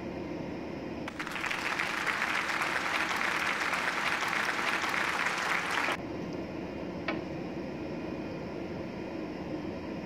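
A burst of applause, added as a sound effect, starts abruptly about a second in and cuts off sharply about five seconds later, over the steady hum of the ship's machinery. A single click sounds shortly after the applause ends.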